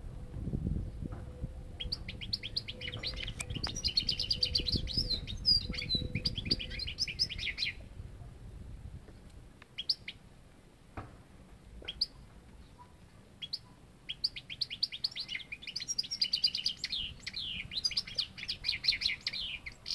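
European goldfinch singing: two long bouts of rapid, high twittering, one starting about two seconds in and one filling the last third, with a few single call notes in the quieter stretch between.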